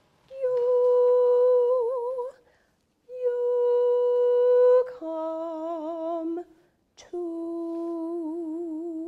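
Women's choir singing long held notes in unison, with short breaths between them: two notes on one higher pitch, then two on a lower pitch. Each note starts fairly straight and takes on vibrato toward its end.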